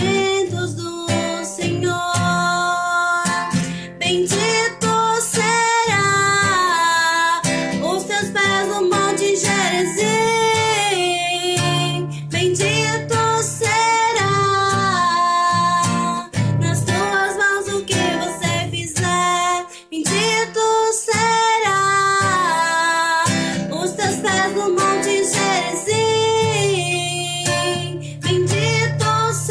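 A woman singing a gospel hymn in long, held, gliding notes, accompanied by strummed acoustic guitar.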